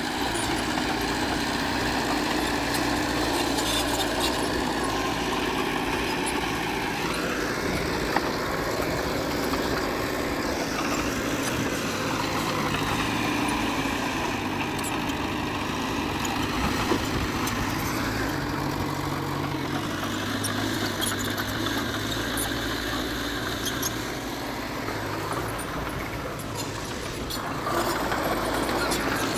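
Diesel engine of heavy earthmoving machinery running steadily. Its pitch rises and falls a few times as it works, and it grows somewhat louder near the end.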